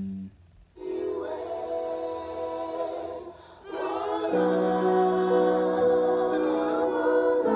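An a cappella vocal group singing held chords in close harmony, played back through laptop speakers. The singing breaks off briefly about three seconds in and comes back louder.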